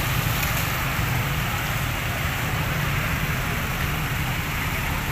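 Motorbike engines running and water rushing and splashing as the bikes ride through floodwater on the road, a steady noisy wash with a low engine rumble underneath.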